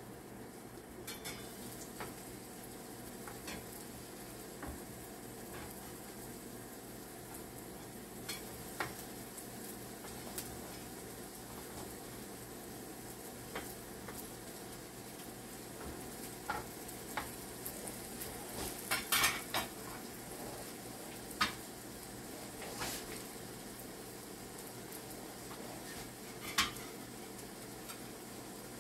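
Banana fritters frying in oil in a pan, a steady sizzle, with scattered clinks and scrapes of a metal spoon and fork turning them, busiest about two-thirds of the way through.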